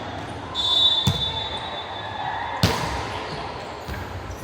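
A basketball bouncing on a gym floor: two sharp thuds, about a second in and again a second and a half later, over the murmur of a hall. A steady high tone holds for about two seconds between them.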